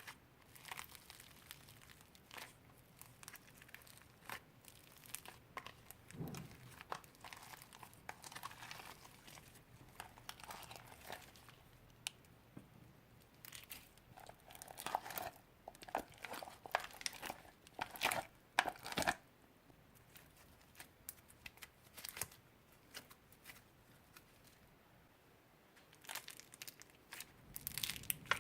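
Old slime being mixed and squished by hand, giving off irregular sticky crackles and small pops. The crackling is thickest in the middle and thins out for a few seconds near the end.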